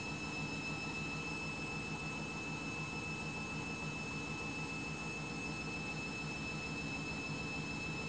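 Candy front-loading washing machine in its wash phase: the drum turning through water with a steady swishing and motor hum, unchanging throughout.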